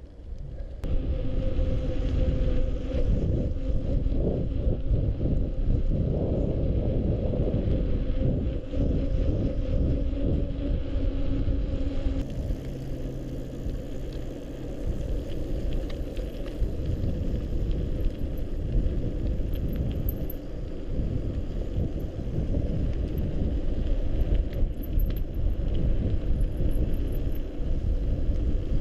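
Mountain bike riding over a slushy, muddy snow-covered trail: a steady rumble of knobby tyres churning through slush and mud, mixed with wind on the microphone.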